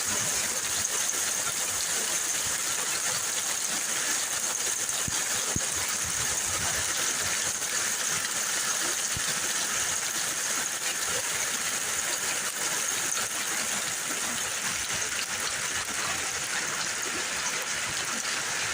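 Heavy rain mixed with hail coming down steadily, a dense wash with many small ticks of stones and drops striking.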